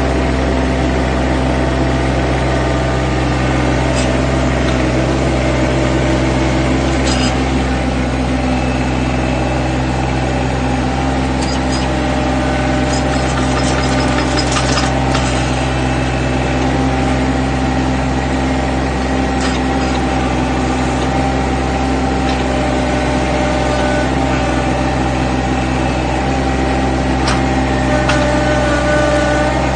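Small loader tractor's engine running steadily while the front loader carries a stack of big square hay bales on a bale spear, with a few light clicks and rattles scattered through.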